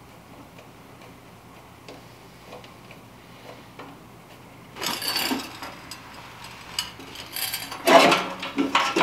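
Faint ticks and taps of hands working at an old oil burner's wiring. About five seconds in comes a clattering of its sheet-metal housing, then louder clanks and scrapes near the end as the burner is shifted and tipped over.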